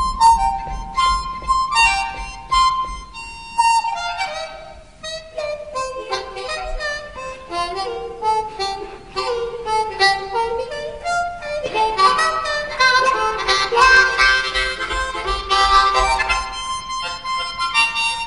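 Background music: a harmonica playing a fast melody of many short notes.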